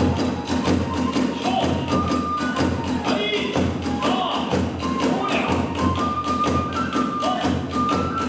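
Kagura hayashi music: a taiko drum and small hand cymbals striking in a fast, even rhythm, with a bamboo flute holding high, sustained notes over them.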